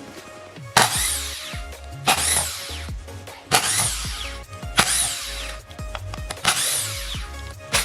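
Background electronic music: a rushing, cymbal-like swell about every second and a half over a steady bass line.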